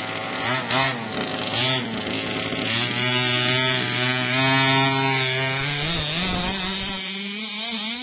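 Small two-stroke engine of a gas-powered remote-control buggy buzzing under throttle, revving up and down in quick swings, then held at high revs for a couple of seconds before its pitch drops and settles lower near the end.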